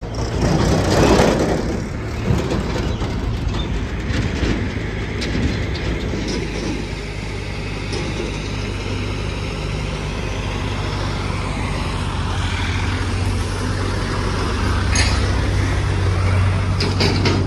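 Heavy diesel engine running steadily with a low hum, a loud rushing surge about a second in and a few sharp knocks near the end.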